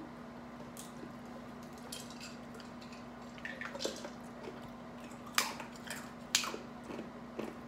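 Eating sounds: lobster and crab shells being picked apart by hand, with small cracks and clicks and some chewing, two sharper clicks standing out in the second half. A steady low hum runs underneath.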